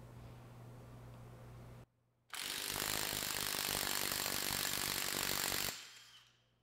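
Milwaukee M18 half-inch mid-torque impact wrench hammering rapidly for about three and a half seconds, driving through a half-inch to 3/8 drive impact adapter, then fading out. The run ends with the adapter breaking at about 258 ft-lb.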